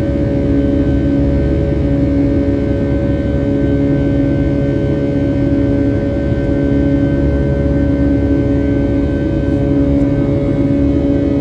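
Boeing 757-300's jet engines running steadily during the climb after takeoff, heard inside the cabin beside the wing: a loud, even drone with a low hum and a few held tones.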